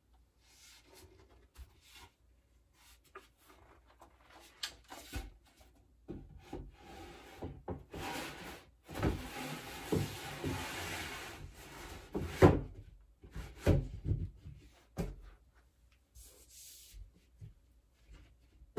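Thin fibreboard back panels of a chest of drawers sliding along the grooves of the carcass: a scraping rub that lasts several seconds in the middle, with light knocks as the boards are handled and a sharper knock as a panel is pushed home about two-thirds through.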